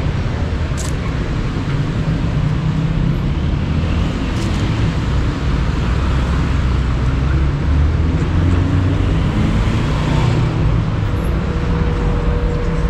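Street traffic: a steady low rumble of cars running along the road.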